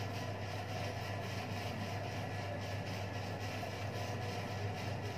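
Steady low electric motor hum over a constant background hiss.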